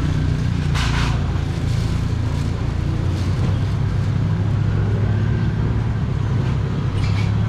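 Steady low drone of an idling engine. A short rustle of a plastic bag comes about a second in.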